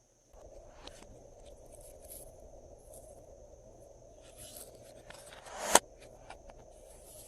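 Glossy slime being squished and worked by hand, with small sticky clicks and crackles and one sharp loud pop of air about six seconds in.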